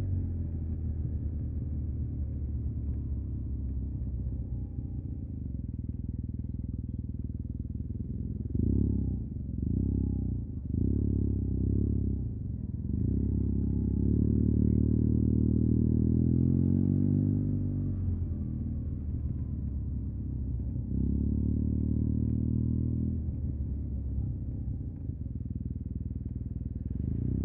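Yamaha TMAX 560's parallel-twin engine through an Akrapovic carbon full-system exhaust, running at low revs. It gives a few short throttle blips about a third of the way in, then longer pulls of acceleration in the middle and again later.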